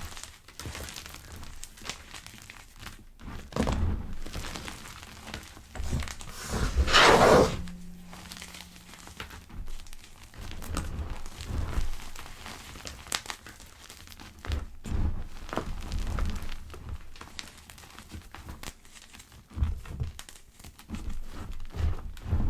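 Gym chalk pebbles being crushed, giving irregular soft crunches and crackles with small thunks, the loudest, longest crunch about seven seconds in.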